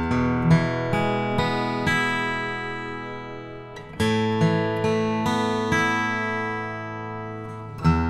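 Eastman E40D left-handed dreadnought acoustic guitar being played. Single notes are picked one after another over ringing bass notes, and the phrase starts afresh about every four seconds.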